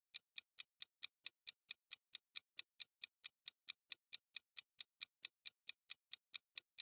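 Clock-tick sound effect of a quiz countdown timer, ticking evenly about four to five times a second while the time to guess runs out.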